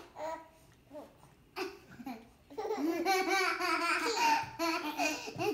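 A baby and a young child laughing: after a few short, quiet sounds, continuous laughter breaks out about two and a half seconds in.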